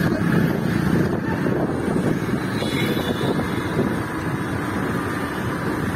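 Steady wind buffeting the microphone over the running noise of a moving vehicle, a continuous rushing rumble.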